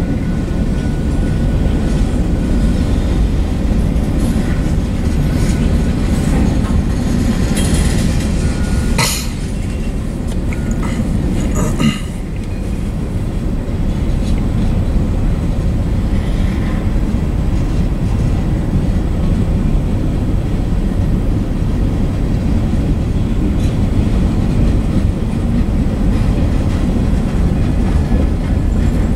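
Freight cars of a manifest train rolling past: a steady, loud rumble of steel wheels on rail, with two sharp knocks about nine and twelve seconds in.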